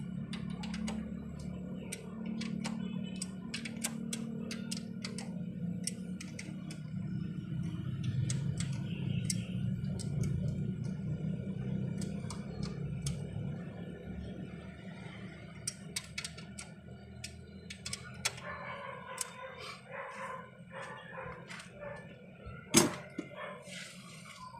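Ratchet wrench clicking in short irregular runs as the camshaft bearing cap bolts on a Toyota Corolla cylinder head are turned, over a steady low hum. One sharp metallic knock comes near the end.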